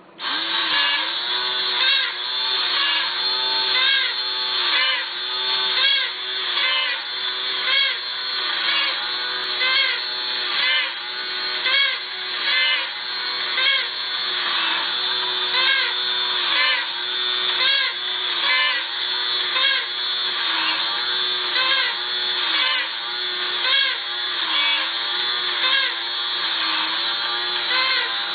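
Battery-operated toy bear's small electric motor and gear mechanism running, pumping its toy accordion. The whirring dips and rises in pitch in a steady cycle about once a second as the bellows are worked.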